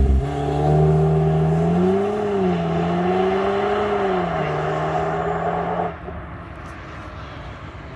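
VW T-Roc R's turbocharged 2.0-litre four-cylinder engine running through its stock exhaust at a steady speed, its pitch rising gently and settling back twice. About six seconds in, the engine sound drops away, leaving a quieter steady noise.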